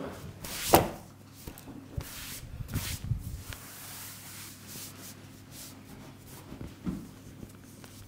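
Hands rubbing and working over skin and hair during a head massage, with one loud sharp click about a second in and a few softer knocks later.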